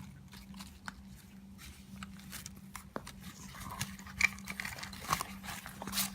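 Small items being handled and packed into a bag: scattered clicks and rustling that grow busier about halfway through, over a steady low hum.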